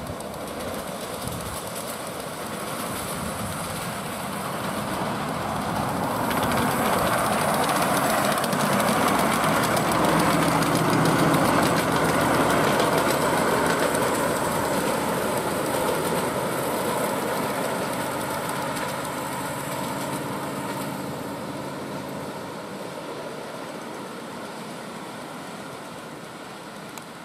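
A 7¼-inch-gauge live-steam model of a Queensland Rail BB18¼ locomotive hauling passenger riding cars runs past. It grows louder to a peak about halfway through and then fades as it runs away.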